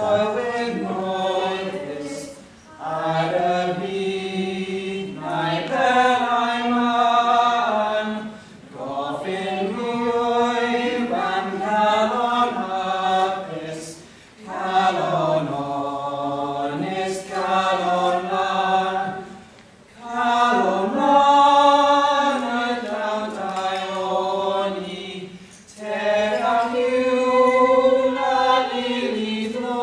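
A small mixed group of young men and women singing together unaccompanied, in slow phrases of held notes about six seconds long with short breaks between them.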